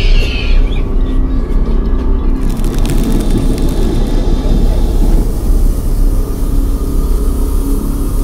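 A loud, steady low rumble with a few faint humming tones over it.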